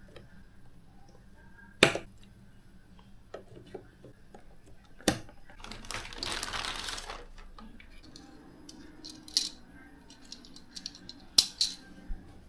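Sharp clicks and knocks of computer parts being handled and fitted together during a PC build, several separate strikes with a short rustle, like packaging or a bag being handled, about six seconds in.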